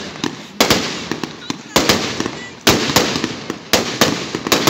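Aerial fireworks shells bursting overhead: five sharp bangs, about one a second, each trailing off in crackle, with smaller pops in between.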